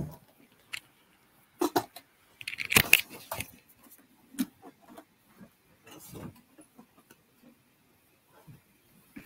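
Handling noises picked up by a video-call microphone as someone gets up and moves about: scattered knocks and clicks, with a louder clattering rustle about three seconds in.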